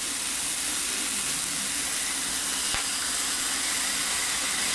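Bacon-wrapped chicken rolls sizzling on a hot ridged grill plate, a steady hiss, with one light click about three seconds in.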